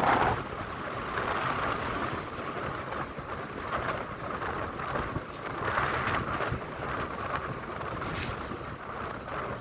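Sea waves washing in and out, a rushing noise that swells and fades every second or two.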